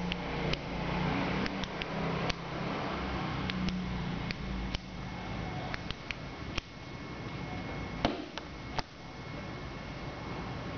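Steady background noise with a low hum that fades out about halfway through, and scattered sharp clicks, about ten of them.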